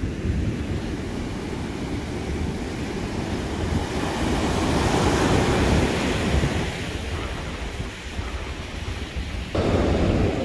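Ocean surf breaking and washing up a sand beach, with wind buffeting the microphone. The rush of water swells about four seconds in and fades, and the sound changes abruptly near the end.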